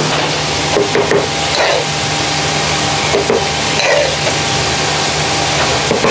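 A metal spoon scraping curry out of a frying pan into plastic takeaway containers, a few short scrapes and knocks over the steady hum and hiss of a commercial kitchen.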